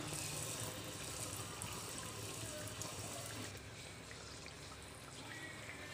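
A puri deep-frying in hot oil in a kadai: a steady crackling sizzle that eases off a little after about three and a half seconds.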